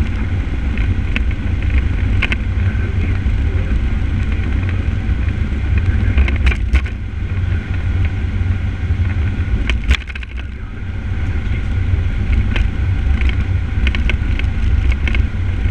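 Fire engine driving at highway speed: a steady, loud low rumble of engine and road noise, with a few sharp clicks or knocks around the middle.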